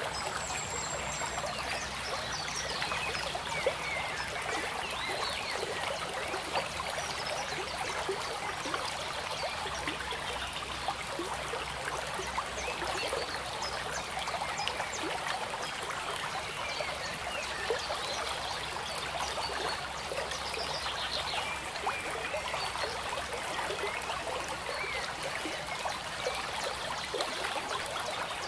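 Steady trickling, bubbling water like a small stream, running without pause.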